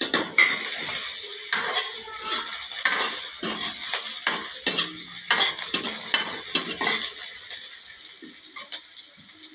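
Steel ladle scraping and clinking against a stainless steel kadai as chopped onions, ginger, garlic and green chillies sizzle in hot oil. The strokes come thick and irregular, then thin out and the sizzle grows quieter near the end.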